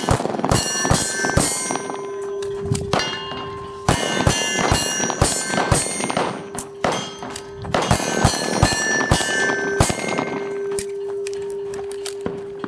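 Revolver shots fired in quick strings at steel targets, several shots a string with pauses of about two seconds between strings. Hit steel plates ring on between the strings.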